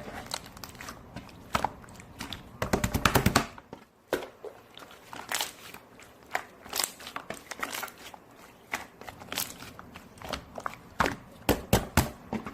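Irregular sharp clicks and taps of small objects being handled, with a fast run of taps about three seconds in.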